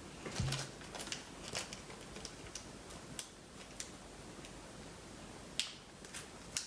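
Scattered light clicks and taps from small objects being handled, with a sharper click near the end.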